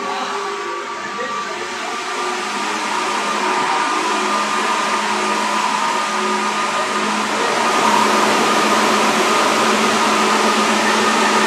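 JR 205 series electric train running, heard from inside the car: steady wheel-and-motor running noise with a few faint steady tones in it. It grows louder over the first eight seconds or so, then holds steady.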